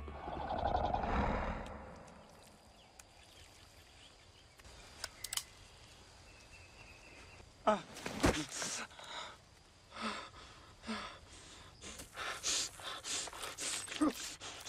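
Film soundtrack: a low rumble fading out over the first two seconds, then a quiet stretch. From about eight seconds in comes a run of short sharp hits and brief gasps and grunts of a struggle.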